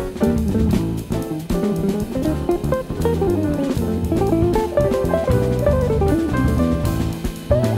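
Background music: guitar melody over bass and a drum kit with a steady beat.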